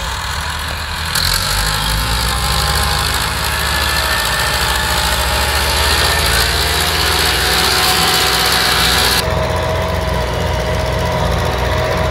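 Diesel tractor engines working under heavy load, among them a Massey Ferguson 265's three-cylinder diesel, as two tractors in tandem pull a stuck loaded trolley through soft ploughed soil. The engine noise swells about a second in, and a harsh high hiss over it cuts off suddenly about nine seconds in.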